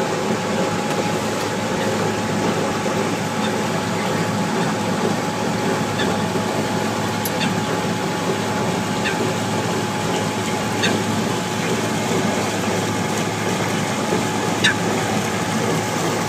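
GoldenMotor 5 kW brushless DC electric boat motor running at steady speed with a thin even whine, over the rush of water along the hull. The sound steps up slightly right at the start.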